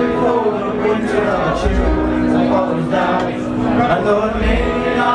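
Live band music with a male singer: a long held note sounds in the middle, over a steady low beat.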